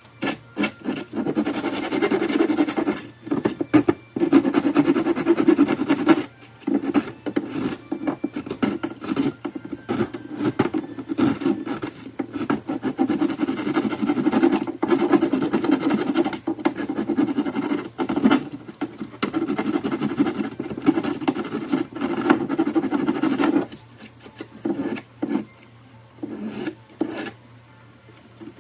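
Hand file rasping across the welded plastic of a reel mower grass catcher in rapid back-and-forth strokes, knocking off loose plastic. The filing stops a little before the end, leaving a few scattered strokes.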